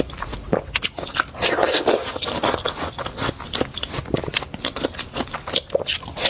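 Watermelon being bitten and chewed, a dense run of quick wet clicks and crunches.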